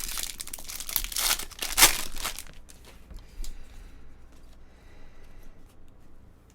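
Trading-card pack wrapper being torn open and crinkled for about two and a half seconds, then fainter scattered clicks of cards being handled.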